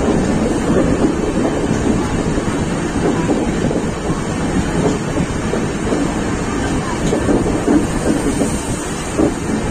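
Steady rumble of a moving Indian express passenger train heard from aboard a coach, with wind buffeting the microphone.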